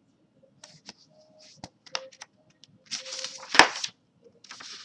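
Sheets of printer paper rustling and crackling as they are handled and turned over. The loudest crackle comes a little past halfway, inside a second-long burst of rustling.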